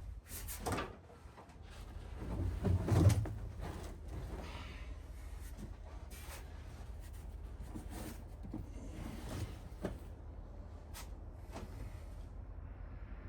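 Car carpet stuck to the floor being pulled up and ripping, with irregular knocks and handling noises; the loudest thump comes about three seconds in.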